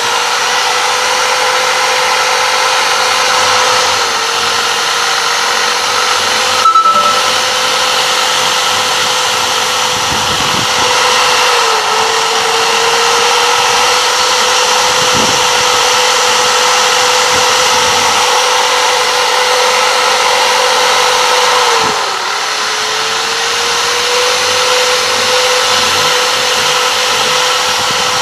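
Handheld electric rotary grinder running with a steady high whine and grinding noise as its bit works inside the port of a finned motorcycle cylinder, the pitch sagging briefly three times as the bit is pressed harder into the metal. A short loud clatter about seven seconds in.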